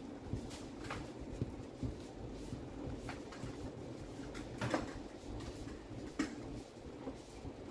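A few light knocks and clicks at irregular intervals over a low steady background hum, the sharpest a little under five seconds in and just after six seconds.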